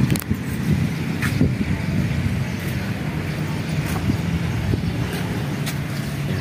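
A motor vehicle engine running steadily close by, heard as a low hum under outdoor traffic noise, with a few faint clicks.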